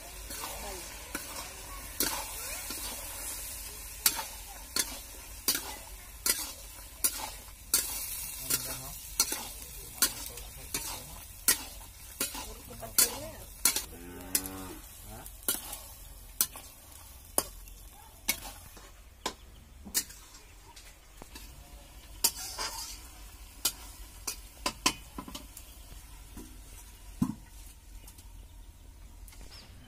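Long metal spatula scraping and knocking against an aluminium kadai as a thick curry is stirred, a little more than one stroke a second, over a light sizzle of the frying masala. The strokes thin out to a few scattered knocks in the last third.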